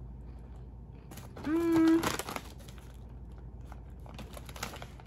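A person chewing a crunchy kettle-cooked plantain chip: small irregular crunches, with a short closed-mouth hum about a second and a half in, the loudest sound.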